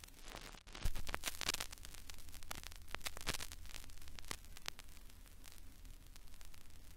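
Faint crackling noise, irregular clicks and rustles, over a low steady hum.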